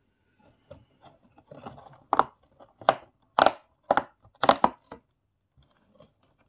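Handling of a LEGO advent calendar's packaging and small parts: faint rustling, then a quick run of about eight sharp snaps and clicks over three seconds.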